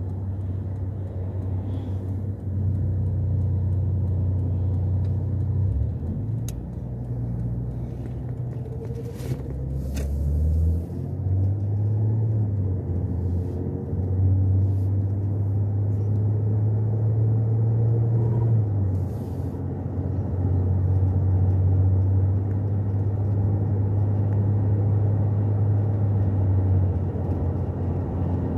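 A car driving, heard from inside its cabin: a steady low engine and road drone that steps up and down in pitch several times, with a few short sharp clicks around the middle.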